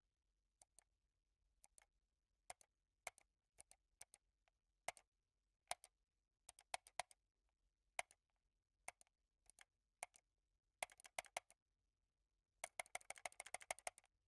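Computer mouse button clicks, close up: single and double clicks spaced out, each a sharp click. A quick cluster comes about eleven seconds in, then a fast run of many clicks near the end.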